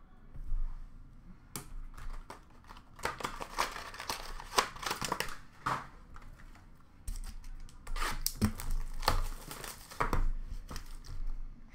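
Trading cards and foil pack wrappers being handled: repeated crinkling and rustling mixed with sharp clicks, with a short lull a little past the middle.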